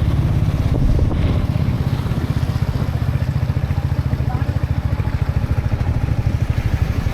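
A motor vehicle's engine running steadily with a rapid, even low throb.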